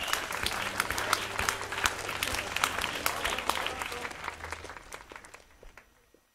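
Club audience applauding, dense hand claps over a low steady hum, fading out to silence near the end.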